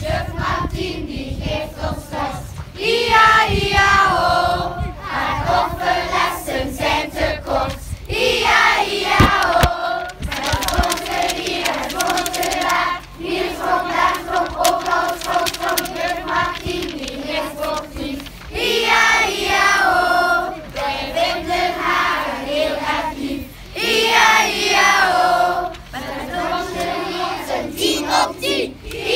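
A large group of schoolchildren singing a song together, phrase after phrase with short breaks between them.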